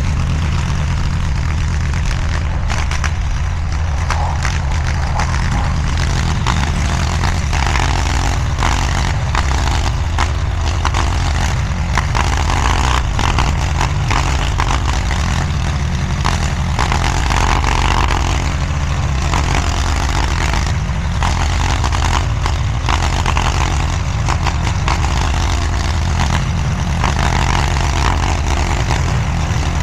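DIGGIT SCL850 stand-behind mini skid steer running steadily at working speed while pushing dirt, with scattered short clatters over the engine.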